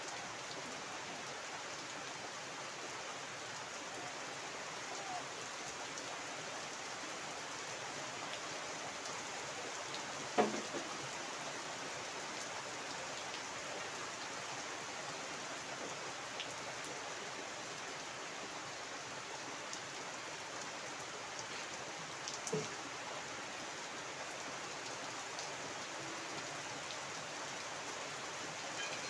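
Heavy rain falling steadily on a flooded yard and its standing water, with two brief louder drips about ten and twenty-two seconds in.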